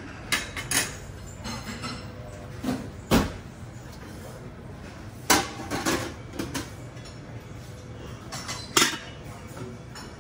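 Ceramic dishes and metal cutlery clinking and clattering now and then at a buffet, several short sharp clinks a second or more apart, over a steady low room hum.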